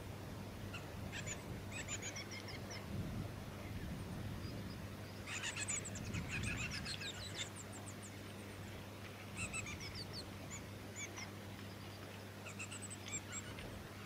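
Black-backed fairy-wren calls: high, rapid trills in four short bursts, the longest about two seconds. A faint steady low hum runs underneath.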